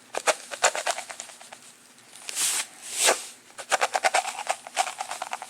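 Salt being poured into a metal coffee can: a patter of quick ticks and clicks, with two short hisses a little past the middle.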